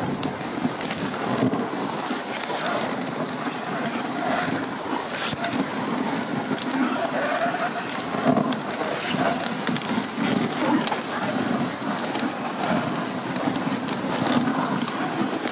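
Dogsled moving along a snowy trail behind its dog team: a steady scraping hiss from the runners on the snow, with frequent small clicks and rattles from the sled.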